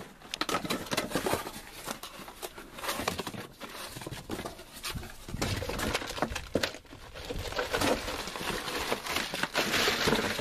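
Packaging crinkling and rustling, with scattered light clicks and knocks of plastic parts being handled, as a new Paramount in-floor cleaning water valve module is unpacked; the rustling grows denser near the end.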